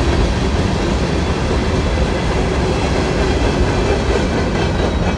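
Covered hopper cars of a freight train rolling past close by on steel wheels, a steady, loud noise of wheels running on the rails.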